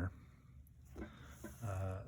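Mostly quiet room tone, then a short hesitant voice sound from the man near the end, just before he speaks again.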